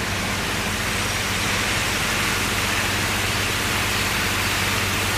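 Small artificial waterfall splashing down a rock wall: a steady rushing hiss, with a low steady hum underneath.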